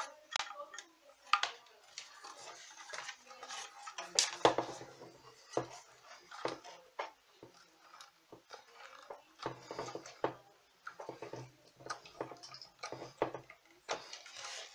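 Control knobs being worked and tugged at on a guitar amplifier's metal chassis: irregular clicks, taps and clinks of knobs, fingers and the metal panel. The knobs hold fast on their potentiometer shafts because they have been glued on.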